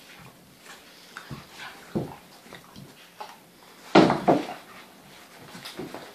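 A whippet and a saluki puppy play-fighting on a quilt over a wooden floor: scattered thumps and scuffles of paws and bodies. The loudest thump comes about four seconds in, as they leap.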